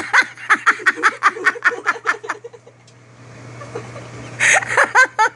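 Person laughing: a rapid run of short giggles for the first two seconds or so, then a shorter burst of laughter near the end.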